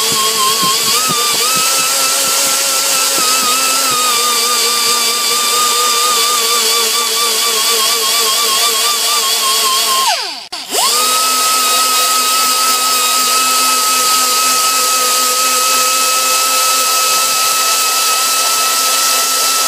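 High-speed rotary tool spinning a white 120-grit bristle disc lightly across a cast iron engine block's head-gasket deck, a steady whine that wavers slightly under light pressure. About halfway through it spins down for a moment and comes straight back up, then runs on a touch higher in pitch.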